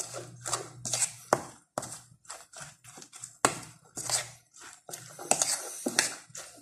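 Metal fork stirring and scraping through chopped cabbage and beaten egg in a ceramic bowl, with irregular clinks and scrapes of the fork against the bowl.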